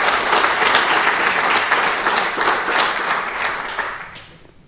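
Audience applauding at the end of a talk, dying away near the end.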